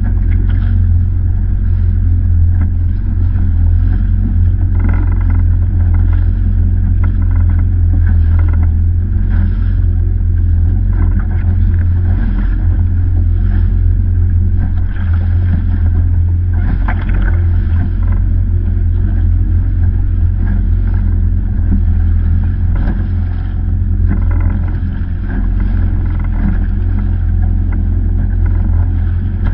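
Yamaha VX-series jet ski under way at steady speed over choppy water: a loud, steady, low engine drone. The hull slaps and splashes repeatedly on the chop.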